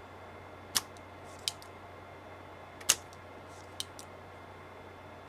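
Small spring-loaded desoldering pump (solder sucker) clicking as it is worked: about five sharp clicks, the loudest about three seconds in, as the plunger is cocked and snaps back to suck up molten solder. The pump is clogging with solder and getting hard to push.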